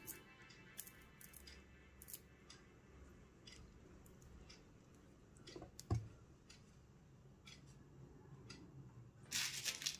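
Faint, scattered clicks and rustles of pearl beads and thin thread being handled as a needle is passed through the beads and the thread pulled tight. There is one louder click about six seconds in and a quick run of clicks near the end.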